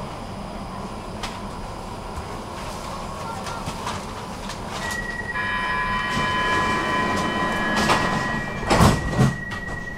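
Stockholm metro train heard from inside the car while running: a steady rumble with scattered clicks from the track. About halfway through, a high, steady whine of several tones sets in and grows louder. Two heavy knocks come shortly before the end.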